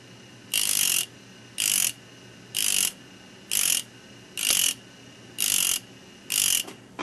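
Black corundum disc spinning in a rotary tool, touched against the teeth of a high-speed steel bur in seven short grinding strokes, about one a second, with a faint steady hum from the tool between strokes. The bur's cutting edges are being resharpened one tooth at a time.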